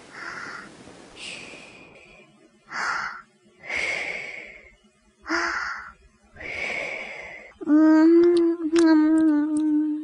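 Exaggerated snoring breaths from a sleeper, in and out about five times, each a rasping breath of under a second. Near the end they give way to a loud, long, steady moan held for over two seconds.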